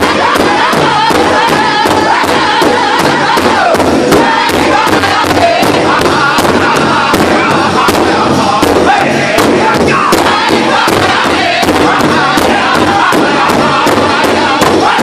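Powwow drum group singing loudly in unison around a large hide-covered drum, which they strike together in a steady beat of about two to three strokes a second.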